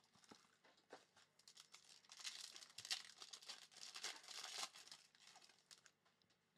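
Foil trading-card pack wrapper crinkling and tearing as the pack is opened by hand, a quiet run of crackles that is busiest through the middle.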